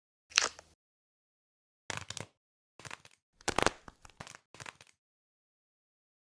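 Short bursts of crinkling, crunching handling noise from squishy toys being picked up and stacked: one just after the start, then several more about two to five seconds in, with silence between.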